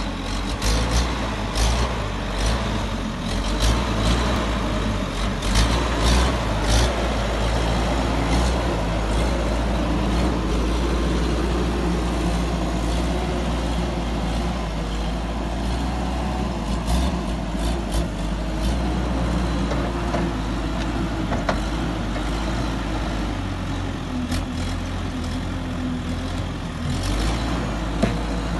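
Skid steer loader's engine running steadily under work, with sharp knocks and clanks that come thickest in the first several seconds and return a couple of times later.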